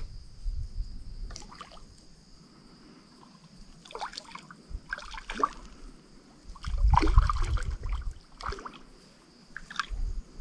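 Small water sounds, trickling and sloshing, with a few short splashy bursts, over a steady high-pitched trill of night insects.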